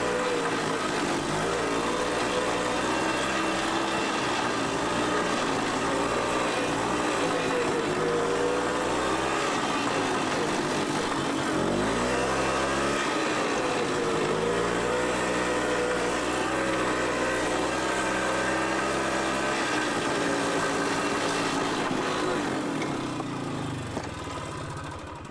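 ATV engine running while riding, its pitch rising and falling with the throttle, with a marked slow-down and pick-up about halfway through. Near the end the engine winds down and goes quiet.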